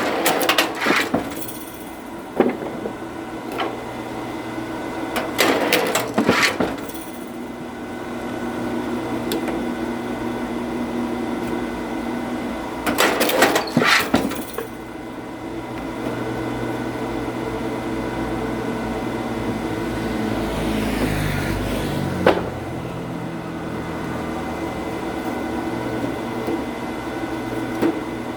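Oak firewood being split: three bursts of cracking and splintering wood, each about a second long, with a few single knocks between them. Under it runs the steady hum of an engine, which changes pitch about twenty seconds in.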